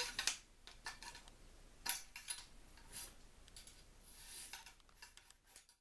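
Wire bore brush on a cleaning rod scrubbing back and forth through a 12-gauge Remington 870 shotgun barrel: faint scraping with irregular metallic clicks and taps.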